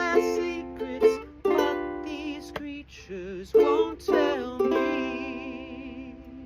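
Ukulele strumming chords with a wordless sung vocal line, closing on a last chord that rings out and fades away.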